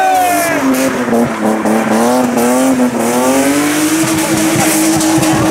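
BMW E36 drift car's engine held at high revs through a sideways slide, with its pitch dipping and climbing again as the throttle is worked. Tyres squeal as the rear wheels spin and smoke.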